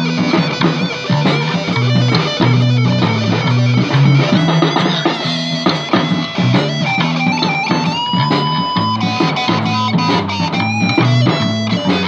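Live rock band's instrumental break: electric guitar over electric bass and a drum kit, with a long held high note about eight seconds in.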